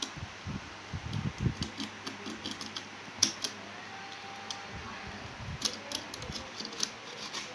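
Irregular small clicks and taps of parts being handled while the vacuum cleaner's switch contacts are worked on, with a few dull knocks in the first couple of seconds.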